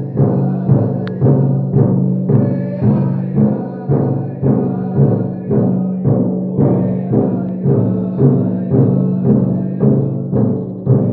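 A men's drum group beating a shared big drum in a steady unison rhythm of about two strokes a second, with men's voices singing along.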